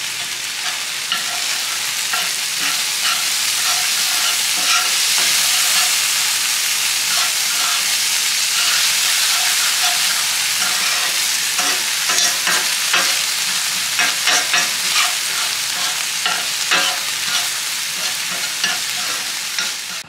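Food sizzling as it fries in an oiled pan, with a utensil clicking and scraping against the pan as it is stirred.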